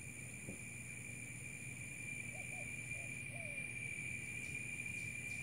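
Quiet outdoor background: a steady high-pitched drone over a low hum, with a few faint short calls about halfway through.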